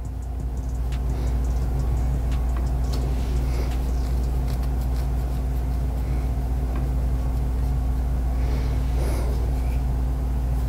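A steady low hum with faint scattered clicks over it.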